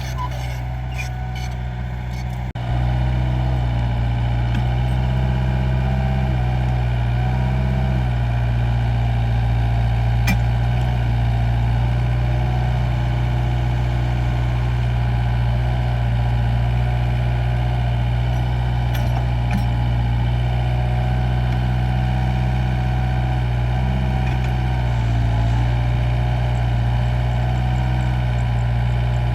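Mini excavator's diesel engine running steadily, with an abrupt jump in loudness about two and a half seconds in.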